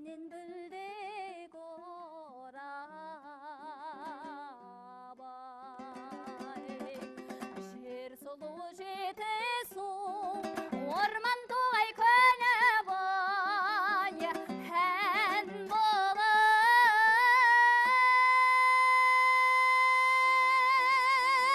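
Kazakh folk song: a woman singing with wide vibrato over a plucked string accompaniment, the melody climbing and growing louder until she holds one long high note near the end.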